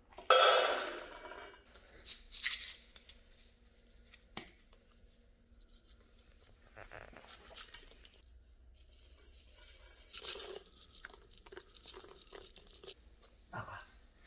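Dried mealworms shaken from a plastic bottle, rattling into stainless steel dog bowls in several short pours. The loudest pour comes just after the start and fades over about a second.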